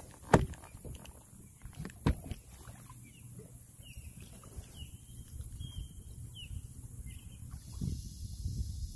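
Kayak paddling on open water: two sharp knocks of the paddle against the kayak, about a third of a second in and again about two seconds in, over a low rumble of wind and water. From about three and a half to seven and a half seconds in, a bird gives a run of short whistled chirps.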